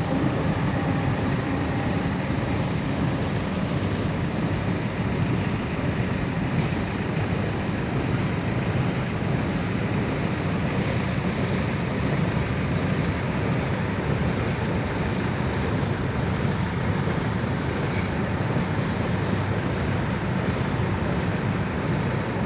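Heavy machinery running with a steady, unbroken rumble and hiss, with no separate knocks or changes in level.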